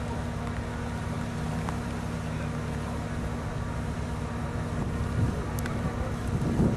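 Off-road 4x4 engine running steadily at low revs, with wind on the microphone.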